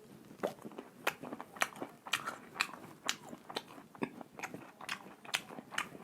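Close-miked chewing of crunchy food, the mouth crunching in a steady rhythm of about two bites a second.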